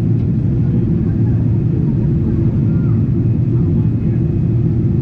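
Steady low rumble of a Boeing 777-300ER's engines and airflow heard inside the cabin in flight, at an even level with no sudden changes.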